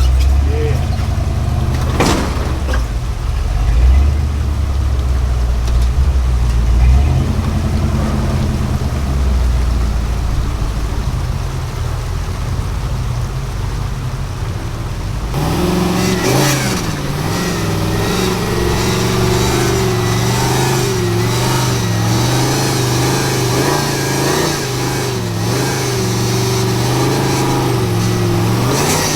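Off-road vehicle engine working and revving while rock crawling, its pitch rising and falling with the throttle. About halfway through the sound changes abruptly from a deep low rumble to a higher, wavering engine note.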